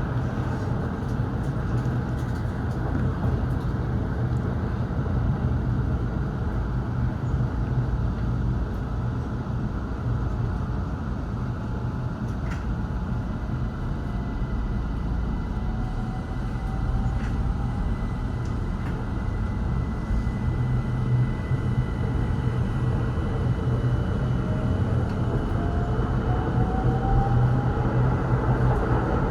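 Keihan 800 series train running, heard from on board: a steady low rumble of wheels and motors, with a rising motor whine in the second half as it picks up speed.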